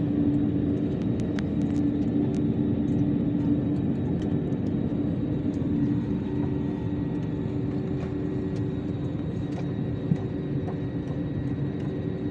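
Airliner cabin noise before takeoff: a steady rumble of the engines and air system with a held droning tone, and a single short knock about ten seconds in.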